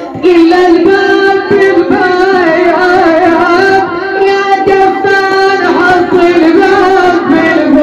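A woman's voice chanting a sad Iraqi southern lament (nai), singing long, wavering held notes.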